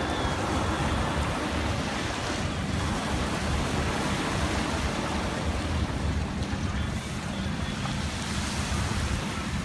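Steady rush of sea waves and wind, with wind buffeting the microphone in an uneven low rumble.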